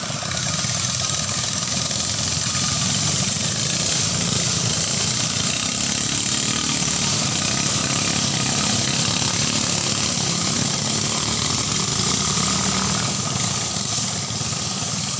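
Small 6.5 hp ketinting longtail boat engines running hard in a boat race, a steady loud engine noise.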